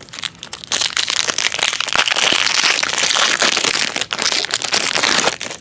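Foil wrapper of a Panini Triple Play baseball card pack crinkling and crackling in the hands as it is handled and torn open.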